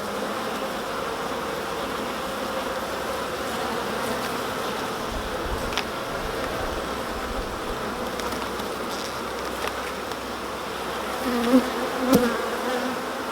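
Honeybees humming steadily from an open hive with its frames out. A faint click comes about six seconds in, and a brief louder swell of buzzing with a sharp click comes near the end.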